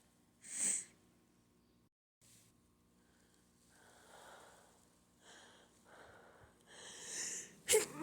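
A person with allergies sniffs once, then takes a few breathy inhales that build up, and a sneeze bursts out near the end.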